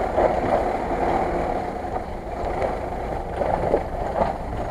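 Lada Niva 4x4's engine running under load as it crawls over a pile of logs, with a few short knocks late on.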